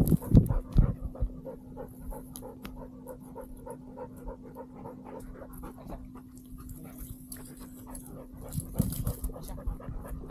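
A dog pants quickly and steadily, very close to the microphone of a camera strapped to its harness. Loud rustles and knocks of movement sound in the first second, and a steady low hum runs under the breathing.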